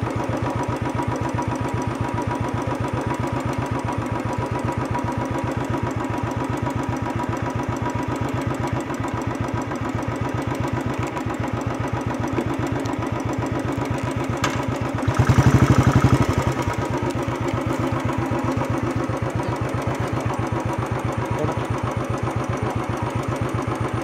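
Motorcycle engine idling with a steady, even beat, swelling louder for about a second and a half in a brief throttle blip roughly two thirds of the way through.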